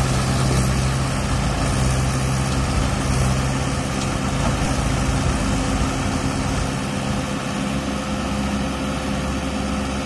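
Diesel tractor engines of a Massey Ferguson 1035 DI and a Mahindra 475 DI running steadily while the Massey Ferguson pulls the mud-stuck Mahindra by a drawbar.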